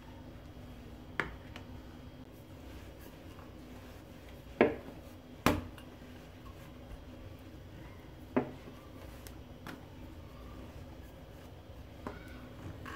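A few sharp knocks, as a plastic dough scraper and a wooden rolling pin are handled and set down on a marble countertop while dough is divided and rolled out, over a faint steady hum. A couple of faint, short high chirps come near the end.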